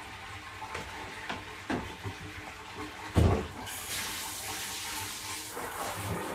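Water running from a tap, a steady rushing hiss, with a few soft knocks and one louder thump about three seconds in; the rush grows stronger and brighter just after the thump.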